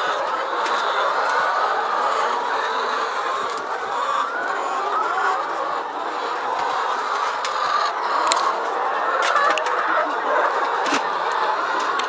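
A large flock of laying hens clucking and chattering steadily in a crowded hen house, with a few sharp clicks in the second half.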